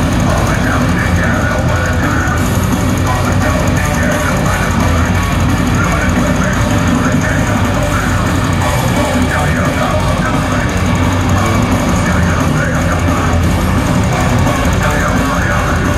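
Heavy metal band playing live through a concert PA: loud, dense distorted electric guitars over bass and drums, continuous and steady in level.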